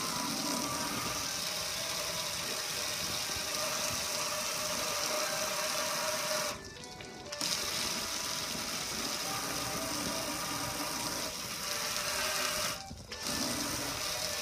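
Water spraying hard onto a gas grill's metal hood and control panel from a pressure washer, a steady hiss over the hum of its pump motor. The spray cuts out briefly twice, about halfway through and again near the end.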